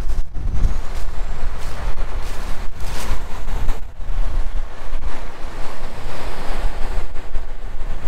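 Diesel engine of a semi truck hauling a loaded grain trailer, running as it pulls away along a farm lane. Heavy wind buffets the microphone, giving an uneven low rumble.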